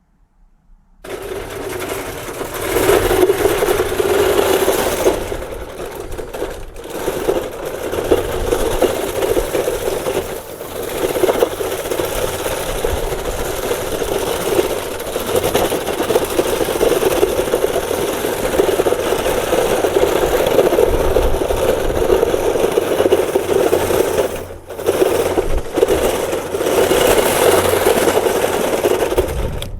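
Home-built RC bulldozer running on its tracks, driven by electric e-bike motors: a loud, continuous mechanical running noise with a steady hum, starting about a second in and cutting out briefly three times.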